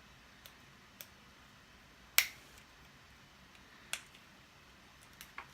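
A handful of sharp clicks and taps from a compact camera and its small plastic parts being handled, spaced irregularly, the loudest about two seconds in.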